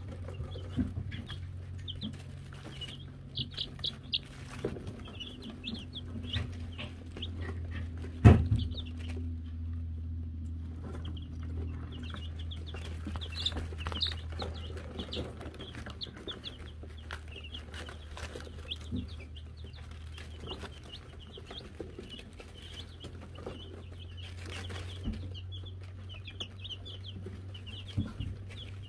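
Wyandotte chicks peeping: many short, high chirps, often in quick runs, over a steady low hum, with one sharp knock about eight seconds in.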